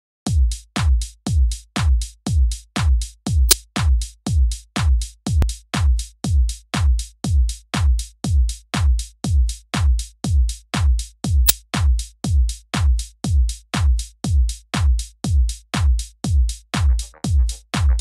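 Electronic background music with a steady drum-machine kick beat, about two beats a second. Higher notes come in near the end.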